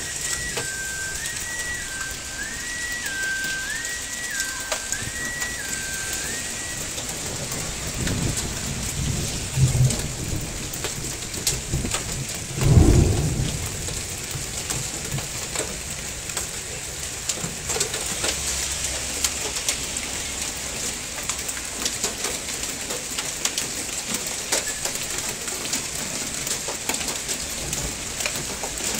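Heavy rain mixed with hail pelting parked cars and the ground: a steady hiss full of sharp ticks. Thunder rumbles twice just before midway, the second time loudest.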